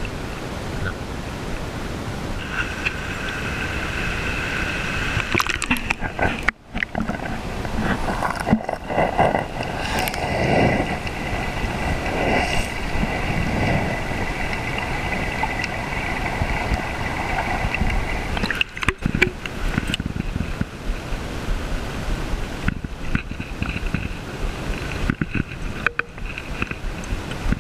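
Shallow river water rushing and gurgling around the camera, held at and just under the surface, with a faint steady high tone through the middle part.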